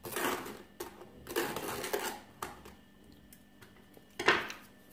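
A table knife scraping butter across a slice of crisp toast in several strokes, then a single louder clatter about four seconds in.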